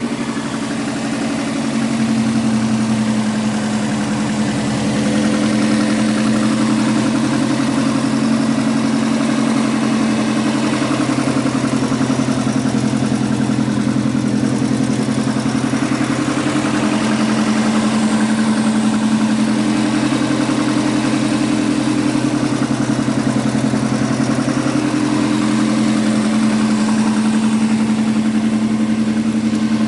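Subaru EJ205 turbocharged flat-four engine idling cold, with the knock the engine makes when cold running through the steady idle.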